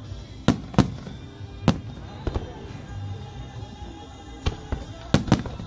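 Aerial firework shells bursting: a string of sharp bangs at irregular intervals, with two in quick succession near the end.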